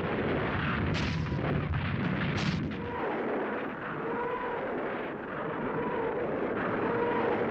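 Recorded salvo of a Soviet Katyusha rocket launcher: a continuous rushing noise of rockets being fired, with sharp cracks about one and two and a half seconds in and a wavering whine over the top.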